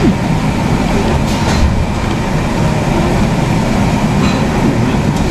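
Steady, loud rumbling noise, heaviest in the low end, with no clear beat or separate strikes.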